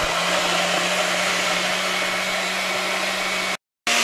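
Oster countertop blender motor running steadily, whirring as it purees dried chiles (ancho, guajillo), tomato and spices in chile soaking water into a sauce. It drops out briefly near the end and comes back at a slightly higher pitch.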